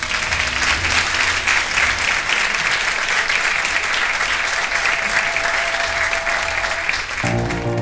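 A crowd applauding, a dense patter of clapping that cuts off abruptly near the end, where music begins.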